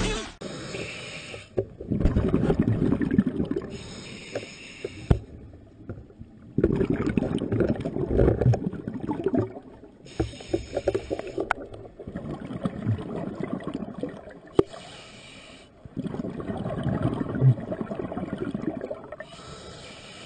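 Scuba diver breathing through a regulator underwater: a short hiss on each inhale, then a longer rush of exhaled bubbles, repeating about every five seconds.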